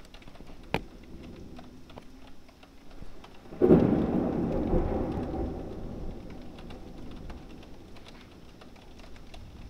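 A thunderclap breaking suddenly about three and a half seconds in and rumbling away over the next few seconds, over rain with many small ticks of falling drops. A single sharp crack sounds just under a second in.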